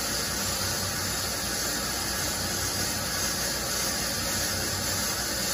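Accu-Turn brake lathe running on automatic feed, its twin cutting bits shaving a brake rotor: a steady hiss over a low motor hum. The sound holds even, with no jumping, the sign of consistent tool contact on the rotor.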